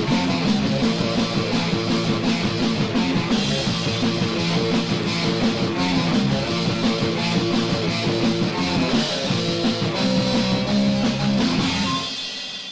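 Heavy metal band recording with electric guitar, bass and drums playing the closing bars of the song, fading out near the end.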